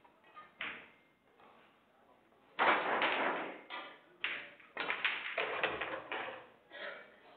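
A pool shot: the cue striking the cue ball and balls clicking together, a cluster of short sharp knocks a little past the middle, with voices in the hall. Before it comes a louder scuffing noise lasting about a second.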